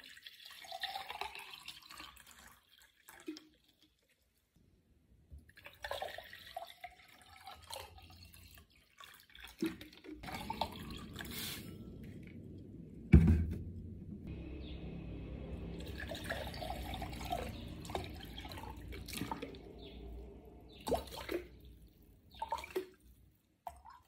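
Water poured from plastic bottles into glass tumblers, in several separate pours with short pauses between them. A single loud knock about thirteen seconds in, and a steady low rumble under the middle stretch.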